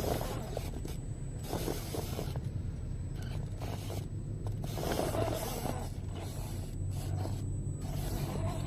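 RGT EX86120 radio-controlled crawler's drivetrain whirring and grinding in short bursts of throttle, over a steady low hum.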